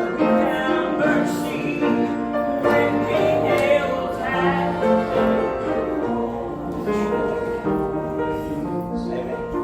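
Slow church music: piano accompaniment with singing, long held notes.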